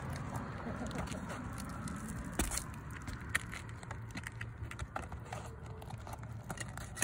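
Asphalt roof shingle tabs being lifted and worked loose by hand, with a few sharp clicks over a steady low hum.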